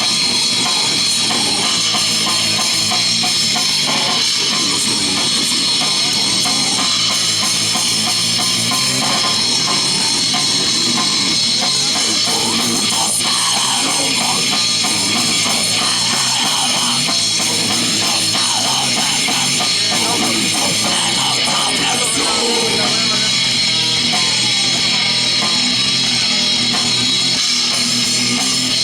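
A rock band playing loud and without a break: electric guitar, bass guitar and drum kit in a dense, heavy mix.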